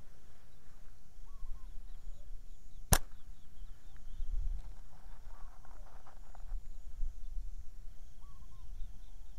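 A slingshot shot: one sharp snap of the released rubber bands about three seconds in, the loudest sound. Faint short bird chirps and a low wind rumble around it.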